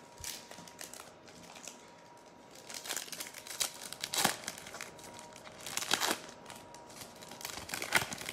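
Trading-card pack wrapper crinkling and tearing as it is opened by hand, in several short rustles, the loudest near the end.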